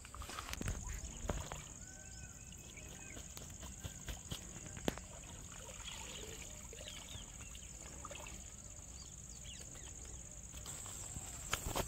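Steady high-pitched insect drone over riverbank ambience, with faint scattered chirps and a few soft knocks and rustles near the start.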